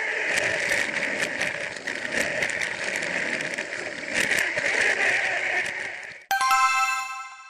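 Plarail battery-powered toy train running on plastic track, heard from a camera riding on it: a steady motor and gear whir with small clicks from the wheels over the rail joints. Near the end the whir stops abruptly and a bright chime rings out and fades.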